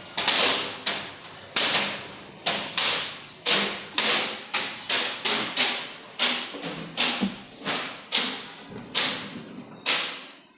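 Repeated loud bangs, about two a second in uneven groups, each a sharp hit that rings briefly before dying away: the kind of banging heard as a nuisance noise in a residential area.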